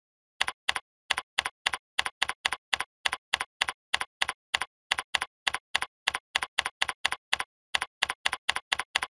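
Computer keyboard keystrokes typed at an even pace of about three and a half a second, each a sharp doubled click.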